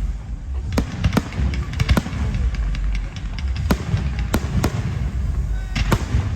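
Fireworks going off: about eight sharp bangs at uneven intervals, two of them close together about two seconds in, over a steady low rumble.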